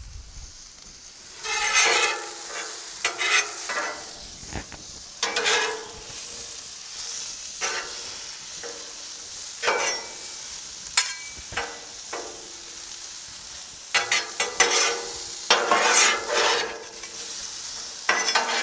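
Mushrooms sizzling in olive oil on a Blackstone griddle's flat steel top, interrupted several times by louder bursts of a spatula scraping and stirring them across the griddle.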